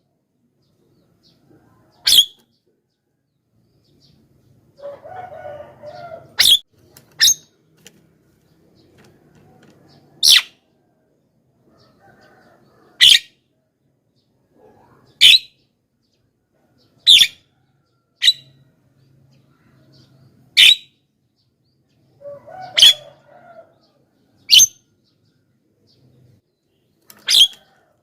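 Javan myna (jalak kebo) calling: about a dozen short, sharp, loud shrieks come every two seconds or so. Twice, about five seconds in and again near twenty-three seconds, softer lower chattering runs between them.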